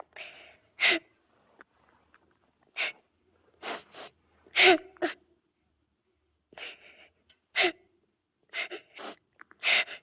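Child crying in about a dozen short, broken sobs with silent pauses between, the sobs coming closer together near the end.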